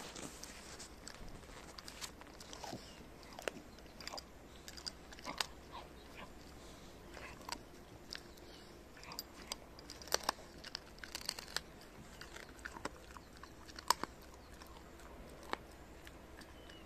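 Shiba Inu biting and crunching the bones of a boiled chicken carcass, with irregular sharp cracks of bone every second or so.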